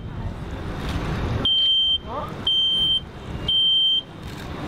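Smoke alarm sounding its temporal-three evacuation pattern, set off by smoke from the mock dorm-room fire: three high-pitched half-second beeps, half a second apart, starting about a second and a half in.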